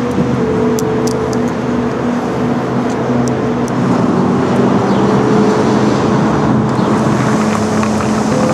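Steady road traffic: cars and trucks passing on a multi-lane road, a continuous rushing hum with a few held low tones running through it.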